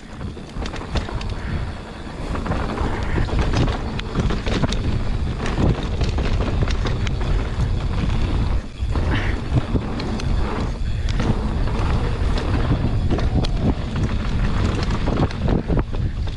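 Orbea Occam H20 mountain bike descending a dirt flow trail at speed: wind buffeting the microphone, tyres rolling over dirt, and the chain and frame rattling over bumps. The rush grows louder about two seconds in as the bike gathers speed.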